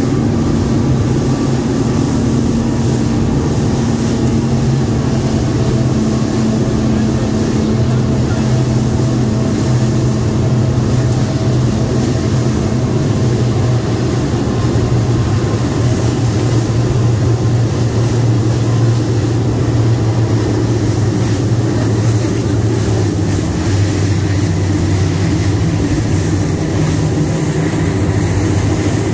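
Speedboat engine running steadily at speed, a loud continuous drone over an even rushing noise.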